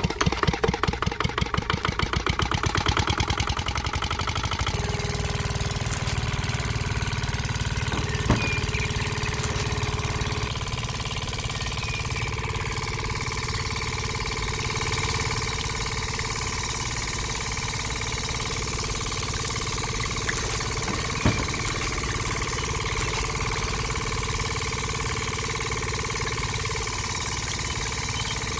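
A small motor in a miniature model engine, driving a toy belt-driven crushing machine. It pulses rapidly and regularly for about the first four seconds, then settles into a steady whir, with two light clicks along the way.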